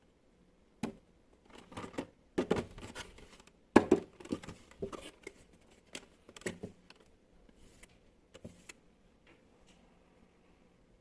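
Hands handling an RC car's box and packaging: scattered knocks, taps and short rustles, busiest in the first half and thinning out later.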